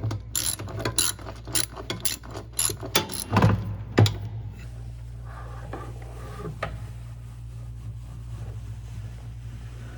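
Socket ratchet clicking rapidly as the 13 mm bolts holding a top-load washer's transmission are loosened, then a clunk and a sharp knock about three and a half to four seconds in. After that only a low steady hum remains.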